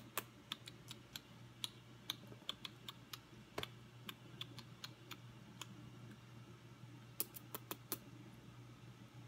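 Kitten chewing and licking a person's hair: faint, irregular little mouth clicks, several a second at first, then a quick run of four or five near the end.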